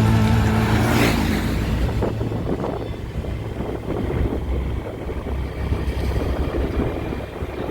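Steady low rumble of a vehicle on the move. Music fades out about a second in.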